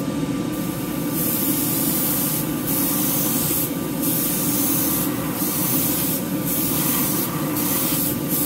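Airbrush spraying acrylic paint: a hiss of air that starts about a second in and runs in passes about a second long, broken by brief pauses. Under it runs the steady hum of the spray booth's exhaust fan.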